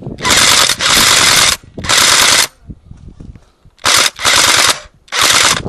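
An airsoft gun firing on full auto in four short bursts, each stopping abruptly, with brief pauses between them.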